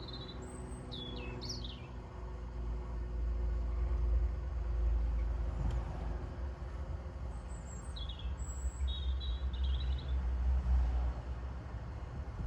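Small birds chirping in two short spells, about a second in and again around eight seconds in, over a steady low rumble and hum.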